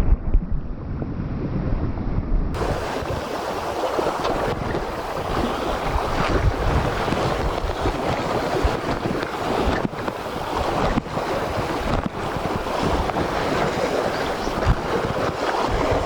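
Strong wind buffeting the microphone over surf washing on the shore, a steady noisy rush that turns brighter and hissier about two and a half seconds in.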